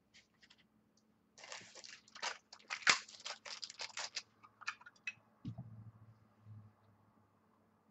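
Crinkling and rustling of a trading-card pack wrapper being opened, for about three seconds, followed by a few light ticks and soft thumps of cards being handled.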